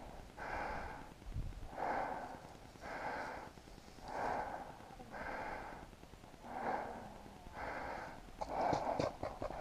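A paintball player breathing fast and evenly close to the microphone, about one breath a second. A few light clicks and rustles come near the end.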